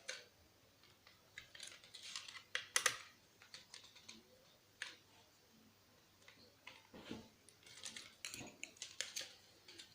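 Faint, irregular light clicks and taps of plastic parts being handled and pried apart during a PlayStation 3 teardown.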